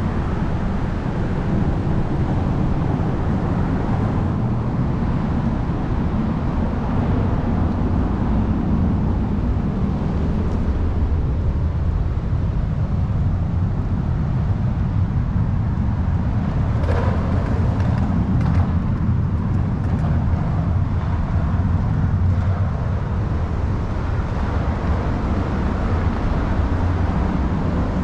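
Steady low rumble of road traffic on the Coronado Bridge overhead.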